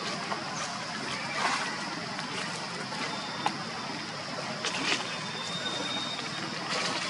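A macaque walking over dry leaf litter: a few short crackles of leaves over a steady outdoor background hiss.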